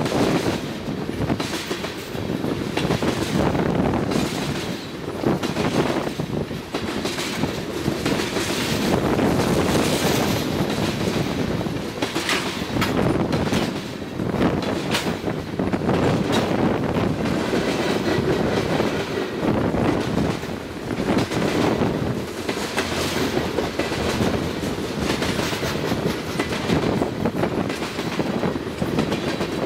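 Tank cars of a CN crude oil train rolling past at speed: a steady rumble of steel wheels on rail, with a repeated clickety-clack as the wheel sets pass.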